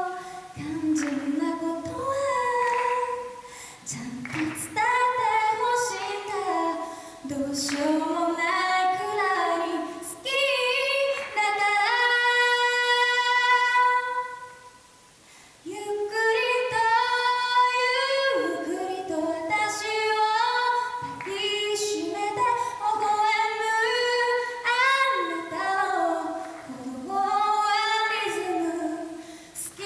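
A woman singing solo into a handheld microphone, one melodic line with long held notes and a short pause about halfway through.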